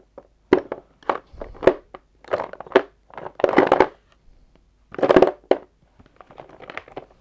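Plastic paint pots being rummaged through and shifted about, giving a string of irregular clattering and rustling knocks.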